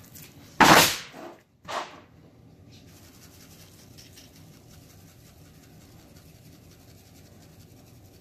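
Salt-and-pepper seasoning shaken from a plastic shaker onto a rack of raw baby back ribs: two short loud swishes in the first two seconds, then a faint steady patter of granules falling on the meat and cutting board.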